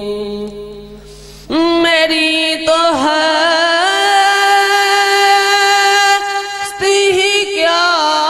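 A male voice sings an Urdu naat (devotional praise of the Prophet) into a handheld microphone, drawing the words out into long held notes with sliding melodic turns. A held note dies away about a second in, a new phrase begins about a second and a half in and is sustained for several seconds, with a short break near the end before he sings on.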